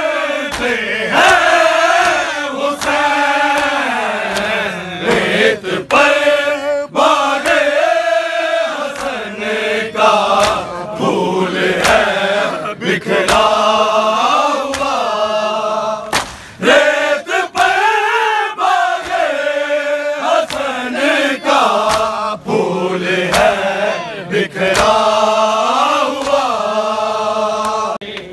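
A group of men chanting a noha, a Shia lament, together in unison. Sharp hand strikes of matam (chest-beating) land through it every second or so.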